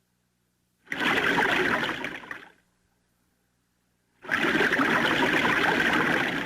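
Scuba diver breathing underwater through a regulator: two long bursts of bubbling exhalation, the second longer than the first, with near silence between them.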